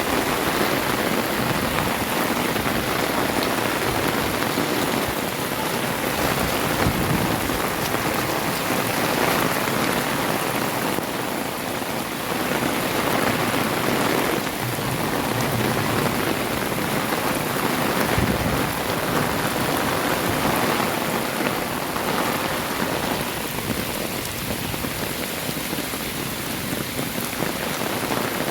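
Heavy rain falling and splashing on surfaces, a dense, even hiss that holds steady throughout.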